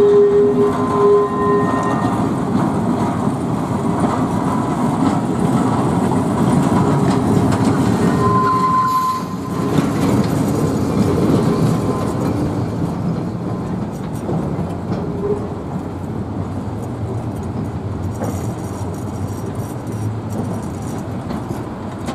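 A motor freight tram towing a Ganz Millennium Underground trainset rolls along tram rails, its wheels rumbling and clattering, with a steady wheel squeal in the first two seconds and again briefly about eight and a half seconds in. The running sound slowly fades toward the end.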